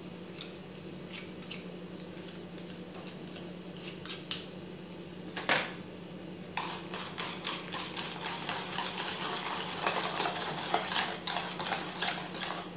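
Wire balloon whisk beating a thick butter, sugar and egg batter in a ceramic bowl, its wires clicking and scraping against the bowl. Light scattered taps at first, one sharper knock a little before halfway, then fast, steady whisking from about halfway almost to the end.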